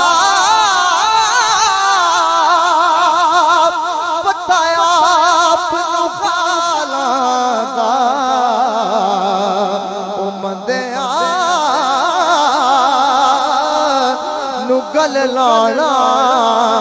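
Men singing a Punjabi devotional hamd through microphones: one long, wavering melismatic line drawn out without clear words, with a brief break about ten seconds in before the voice rises again.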